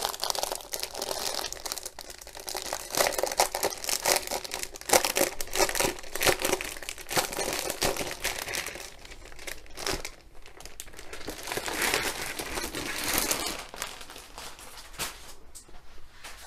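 Plastic wrapping crinkling and rustling as it is opened and pulled off a light pad, with many short sharp crackles, dying down near the end.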